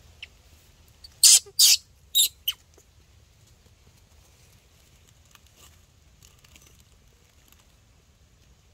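Baby monkey giving four short, shrill squeals in quick succession, about a second in.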